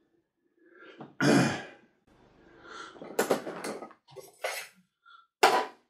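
Water splashing in a tub as a tree's bare roots are rinsed, in several short splashes a second or so apart.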